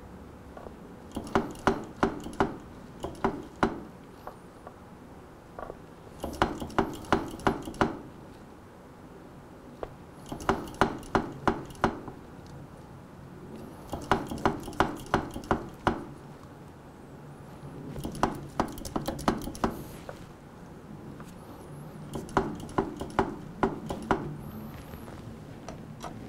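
Bursts of quick, light metallic clicks, six to eight at a time at about three or four a second, repeating roughly every four seconds, while a motorcycle's front brake caliper is being bled.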